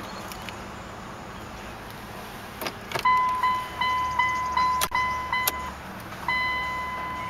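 Clicks of the 2009 Dodge Journey's fob key going into the dash ignition, then the instrument cluster's electronic warning chime, beeping about three times a second for a few seconds before changing to a longer held tone near the end. The cluster shows an open-door warning at the same time.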